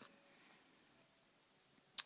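Quiet room tone in a small room, ending in a single sharp click.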